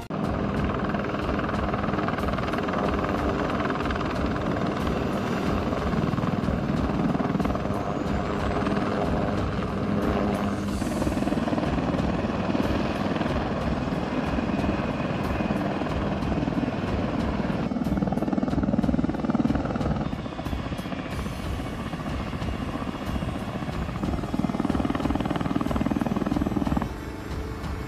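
AH-1Z Viper attack helicopters running on the ground, with a steady rhythmic beat from the turning rotors and a whine from the turbine engines. The sound shifts abruptly a few times.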